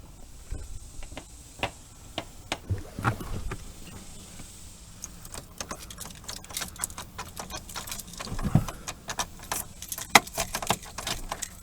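A car key and key ring jangling and clicking as the key is worked into a sticky ignition lock, the small metallic clicks coming thicker in the second half, with one dull thump partway through.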